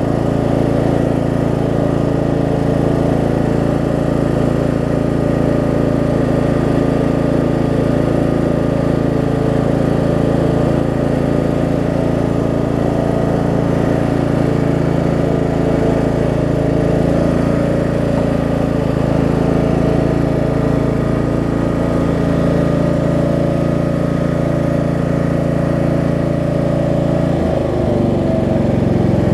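15.5 hp Briggs & Stratton engine of a riding lawn mower running steadily at speed, then slowing down near the end as the throttle is brought back. It is running smoothly, which the owner calls running really good.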